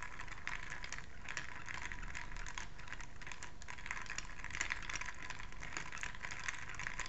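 A metal bar spoon stirring ice cubes in a round glass tumbler: ice clinks and rattles against the glass in a quick, continuous patter as the cocktail is stirred over ice to chill it.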